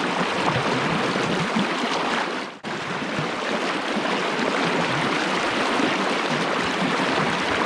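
River water rushing steadily past, a continuous even noise of fast current, broken by a brief dropout about two and a half seconds in.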